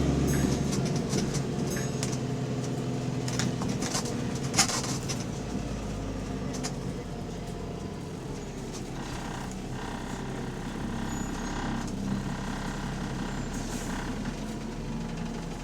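Bus engine running with an exhaust leak, its steady hum slowly easing off. A short sharp hiss or click about four and a half seconds in.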